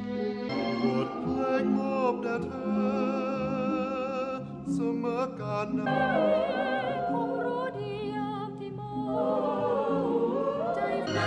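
Slow, romantic film-score song: a singing voice with a wide vibrato over sustained low accompaniment, in an operatic style.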